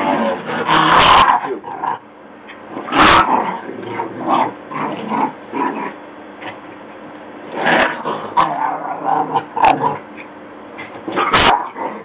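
Dogs growling and barking in repeated bursts during rough play over a stuffed toy.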